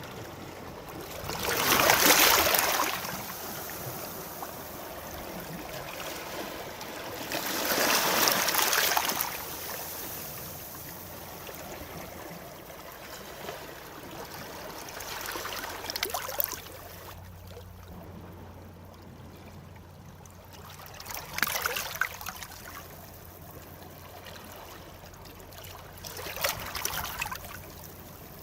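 Sea waves breaking and washing in: five swells about every five to six seconds, the first two the loudest, with a steady wash of surf in between.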